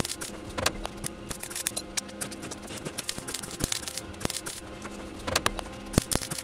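Gas-shielded MIG welder tack-welding a small steel repair plate onto a car's sill, crackling and popping in short, irregular bursts, loudest near the end, over a faint steady hum.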